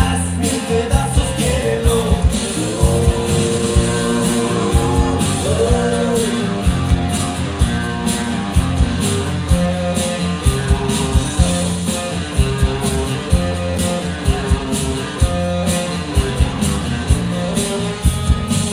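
Loud Latin dance music with singing, guitar and a steady beat, played over a DJ's sound system.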